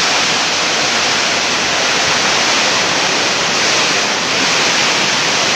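Hailstorm: hail and heavy rain pouring down in strong wind, a loud, steady, dense hiss.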